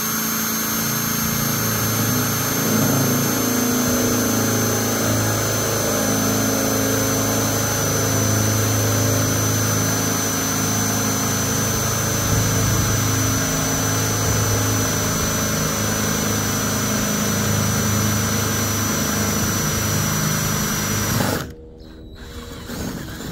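Power drill running at high speed, boring a large bit through a carbon-fibre roof panel: a steady high whine that cuts off suddenly near the end.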